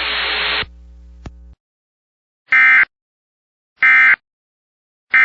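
Emergency Alert System end-of-message code: three short, identical bursts of digital data tones about a second and a half apart, marking the end of the alert. Before them, radio hiss cuts off about half a second in, leaving a faint hum and a single click.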